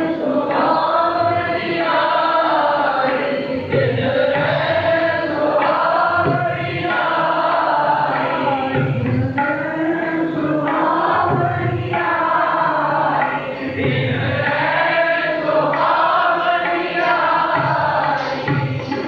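Sikh kirtan: male voices singing a devotional hymn over harmonium, with the low strokes of a tabla recurring about once a second.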